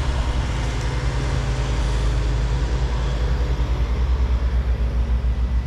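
A motor vehicle's engine running steadily at a constant, low-pitched speed, with no change throughout.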